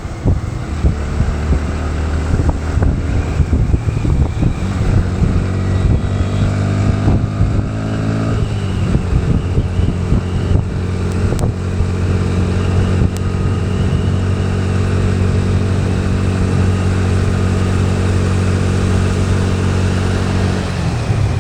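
Motorcycle engine running under way, climbing in pitch for a few seconds as it accelerates, then holding a steady speed, with a rush of wind and road noise.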